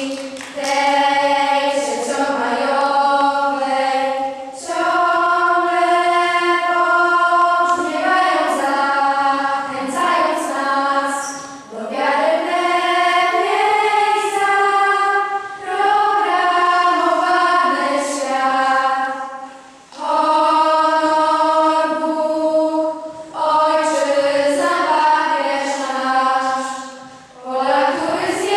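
A choir of schoolgirls singing without instruments, in long held notes with short breaks between phrases.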